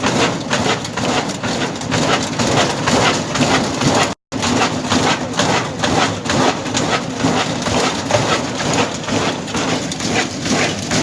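Bonfire crackling and popping steadily, a dense run of small snaps. The sound cuts out for a split second about four seconds in.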